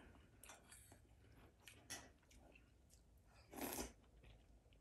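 A person chewing a mouthful of zucchini-noodle lasagna, with faint wet clicks of the mouth and a brief louder noise about three and a half seconds in.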